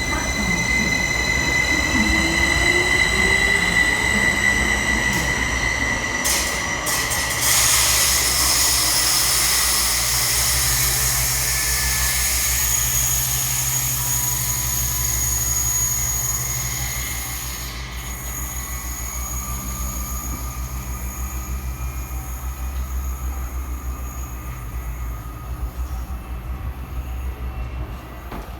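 Train at the station with steel wheels squealing in steady high tones over a low running rumble. A loud rushing noise comes in about seven seconds in and dies away after about eighteen seconds.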